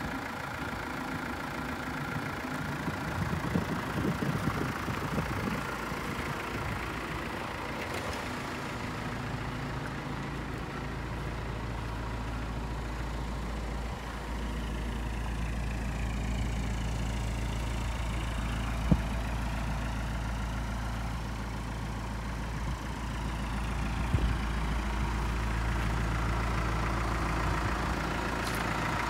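Mitsubishi Rosa minibus's 4M51 four-cylinder diesel engine idling steadily with a low hum, louder from about halfway through. Two short clicks come in the second half.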